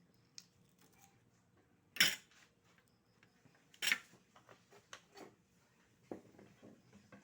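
Oyster shells and tableware clacking: two loud sharp clacks about two and four seconds in, with lighter clicks and knocks between them.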